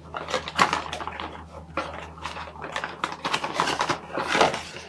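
Paper and cardboard packaging rustling and crinkling as a small product box is opened and its insert pulled out, a dense run of quick, irregular crackles.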